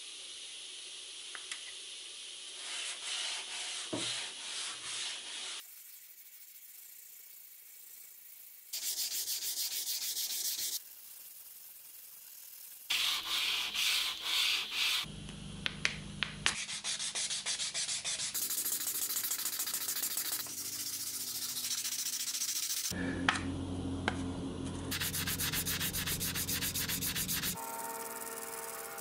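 Sandpaper rubbed by hand back and forth over the steel head of a vintage Fulton axe, a scratchy rasp in short strokes, heard in several separate passages with abrupt changes between them.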